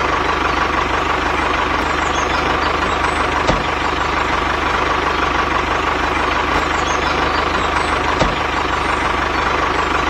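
Tractor engine idling steadily with an even, regular knock, with two brief clicks a few seconds apart.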